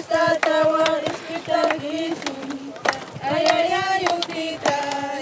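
Women singing a song together, with long held notes that glide from one pitch to the next.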